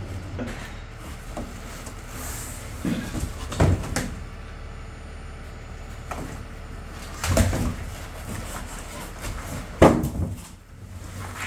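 Cardboard shipping box and panels being handled: a few knocks and thumps, the loudest near the end, over a steady low hum.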